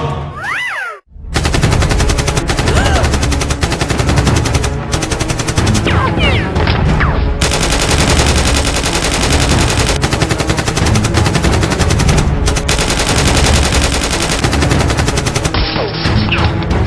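Rapid, continuous machine-gun fire sound effects, starting about a second in and running on almost without a break, over background music.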